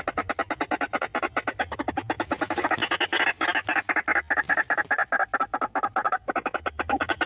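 White-breasted waterhen calling: a fast, unbroken run of harsh croaking notes, about ten a second, with a brief break a little past six seconds in.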